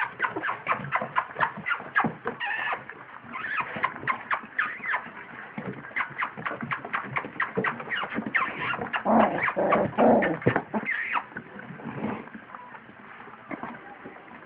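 Two-week-old standard poodle puppies making a few short high squeaks and whimpers over rapid rustling and clicking from close handling among their fur and bedding, with a louder stretch about nine seconds in.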